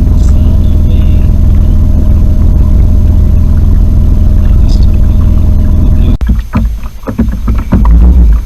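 Small boat's outboard motor running steadily, a loud low drone that cuts off abruptly about six seconds in, leaving irregular knocks and rustles.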